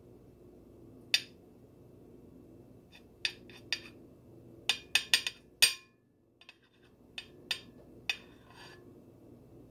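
A series of about ten sharp clicks and clinks of hard objects, most of them bunched together in the middle, over a faint steady low hum.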